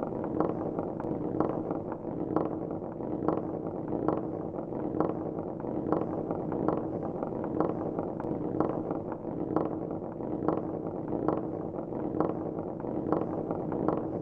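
Marbles rolling along a marble-run track: a steady rolling rumble with light clicks a few times a second as the balls knock against the track and each other.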